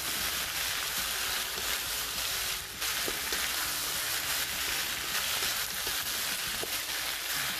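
Beef strips, sliced onion and sweet peppers sizzling steadily in hot oil in a wok as they are stirred with a wooden spatula, dipping briefly a little under three seconds in.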